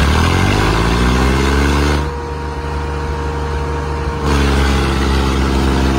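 Tractor engine revving up, its pitch rising over the first second and a half and then held high. It dips quieter for about two seconds and then comes back louder.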